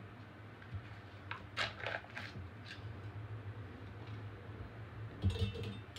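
Plastic frosting tubs and a spatula being handled on a table: a few short scrapes about a second and a half in, then a knock with a brief rattle near the end, over a low steady hum.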